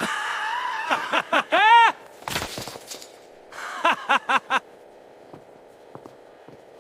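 Bullies jeering and laughing in short rhythmic bursts, with a sharp noisy crash about two and a half seconds in. The last two seconds are quiet.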